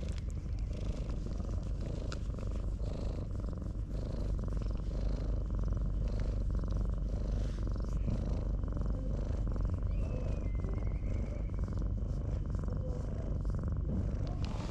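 Orange tabby cat purring steadily and continuously while being stroked on the head.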